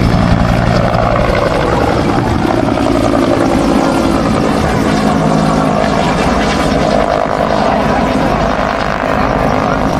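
Bell AH-1 Cobra firefighting helicopter flying past and climbing away, its two-blade main rotor beating in a steady rhythm over the turbine's whine. The whine falls in pitch over the first couple of seconds as it goes by.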